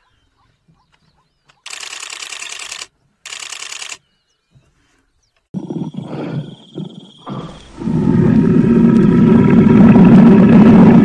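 Lion vocalising: two short hissing bursts, then a few short grunts, building into a loud, long growling roar for the last three seconds or so.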